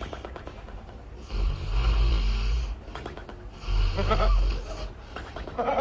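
A pet snoring: three long, rasping snores about two seconds apart.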